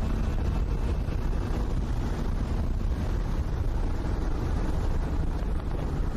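Race car at speed heard from inside the car: a steady low engine and wind rumble on the microphone.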